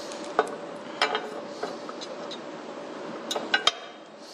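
Several sharp metallic clicks and clinks with a short ring, a pair about a second in and a quick cluster near the end, over a steady faint hum: hand work on metal tractor parts.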